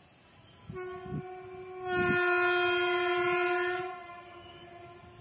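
Horn of an Indian Railways WAG5 electric locomotive sounding one long blast. It starts softer about a second in, swells much louder for about two seconds, then dies away.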